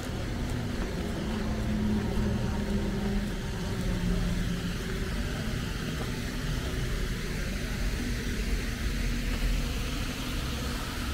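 Steady outdoor city background noise: a low traffic rumble under an even hiss, with a faint low engine hum in the first few seconds.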